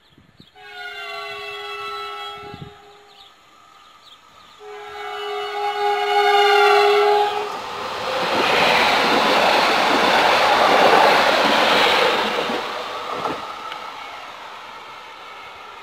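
HŽPP multiple-unit passenger train sounding its horn in two long blasts, the second louder, then passing close by at speed with a loud rush of wheels and air that fades as it goes away.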